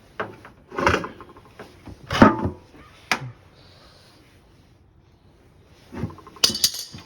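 Clunks, knocks and scrapes of washing machine parts being handled as a loosened part is pulled out of the machine. There are several separate knocks in the first three seconds, one with a brief metallic ring, then a pause and a cluster of knocks and scraping near the end.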